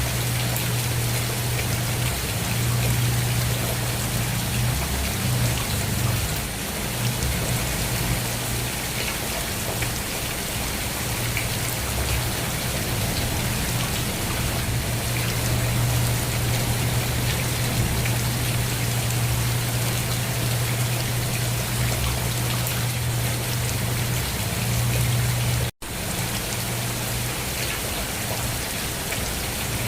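Steady rain falling, an even hiss of drops over a constant low rumble. The sound cuts out for a split second near the end, then resumes.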